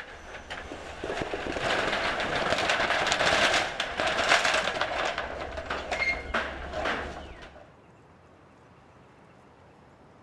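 Metal roller shutter door rattling as it is rolled up: a dense clatter of slats with a low motor-like hum under it, swelling over the first couple of seconds and stopping suddenly about three-quarters of the way through.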